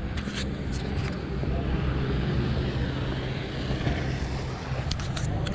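Street traffic: a motor vehicle's engine running steadily close by, while the rush of a passing vehicle swells and fades in the middle. A few light clicks come near the start and the end.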